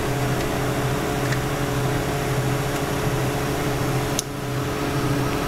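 Steady, fan-like machine hum with one sharp click about four seconds in, as the wiring connector is pushed back onto the distributor of the Honda B-series engine.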